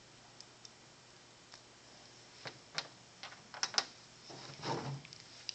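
Small steel parts being handled: faint ticks as an Allen wrench turns out the set screw of a forged flex joint, then a few sharp clicks past the middle as the wrench and joint are set down and picked up, with a brief rustle of handling after them.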